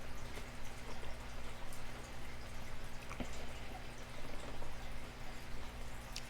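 A person chewing a mouthful of salad close to the microphone: scattered small wet clicks and smacks of the mouth, over a steady low electrical hum.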